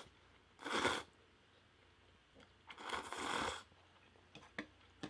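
Slurping instant spicy seafood noodles: a short slurp just under a second in and a longer one around three seconds, then a few faint mouth clicks of chewing.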